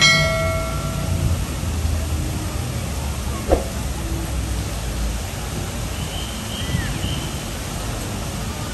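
Busy city-square street ambience: a steady low rumble of road traffic. A short ringing tone sounds at the start, and a single sharp knock comes about three and a half seconds in.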